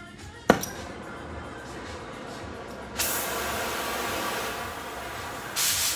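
Oxy-fuel cutting torch being lit with a flint striker: a sharp pop as it catches about half a second in, then the flame hissing. The hiss grows louder about three seconds in as the gas is turned up, with a brief louder rush near the end.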